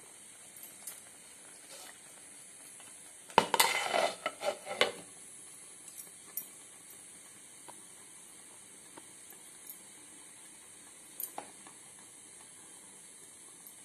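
A glass pan lid clattering as it is set onto a metal pan: a cluster of knocks over about a second and a half. A few faint ticks follow over a low steady background.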